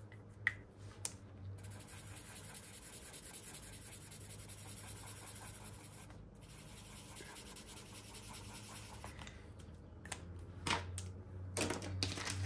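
Paper banknotes and envelopes being handled: soft continuous rubbing and scraping, with a few light ticks in the first second or so and again near the end.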